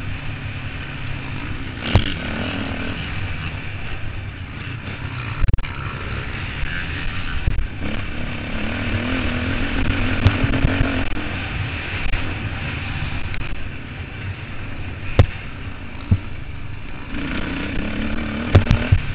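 Motocross bike engine running with the throttle rising and falling. A few sharp knocks break in at scattered moments.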